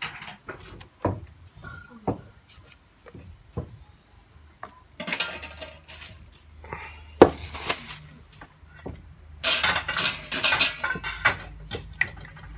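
Knocks, clinks and scraping of kitchen utensils and containers handled beside a clay mortar, with scattered sharp knocks early on and two longer stretches of scraping and rattling about five and ten seconds in.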